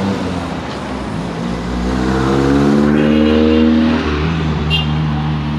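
A motor vehicle's engine running close by, its note swelling and bending up about two seconds in, then falling away after about four seconds, as a vehicle passes or accelerates on the road.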